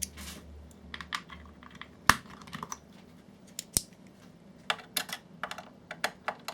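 Irregular plastic clicks and knocks as parts of a cheap projector's plastic housing are handled and worked loose. There are sharp knocks about two and four seconds in, then a quick run of small clicks near the end.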